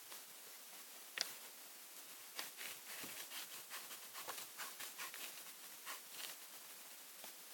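Scissors cutting paper: a single sharp click about a second in, then a run of short snips, about three a second, from about two and a half seconds in.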